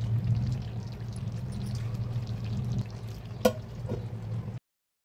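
Chicken curry sizzling faintly in an aluminium pot over a steady low hum. About three and a half seconds in, a single sharp metal clink rings out as the aluminium lid goes on, followed by a lighter tap. The sound then cuts off suddenly.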